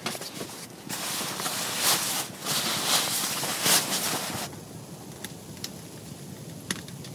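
Nylon sleeping bag and tent fabric rustling as a person shifts and handles gear, swelling and fading for a few seconds and cutting off suddenly about four and a half seconds in; after that, only a few faint scattered ticks.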